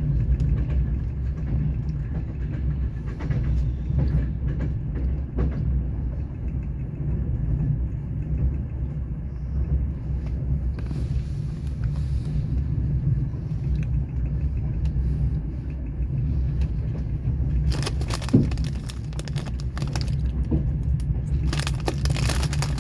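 Steady low rumble of a passenger train carriage running on the rails, with scattered knocks from the wheels. Twice near the end there are short stretches of louder rattling noise.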